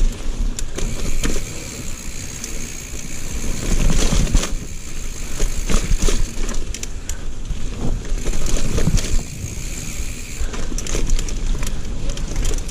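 Mountain bike ridden over a rough trail of roots and rocks: the tyres crunch on dirt and the bike rattles, with many sharp knocks as it hits bumps.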